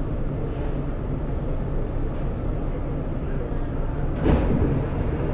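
Steady low hum inside a Shanghai Metro 07A02 electric train standing at a station platform, with a brief clatter about four seconds in.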